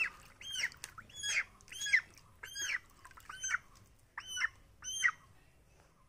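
Kadaknath chick giving shrill distress peeps while held and bathed in a bucket of medicated water: about two calls a second, each rising and falling. The calls stop a little after five seconds in.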